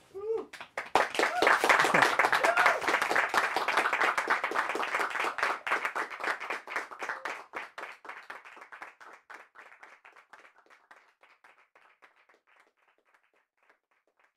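A small group clapping in a studio. The applause is dense at first, with a voice or two cheering near the start, then thins out gradually to a few scattered claps and dies away.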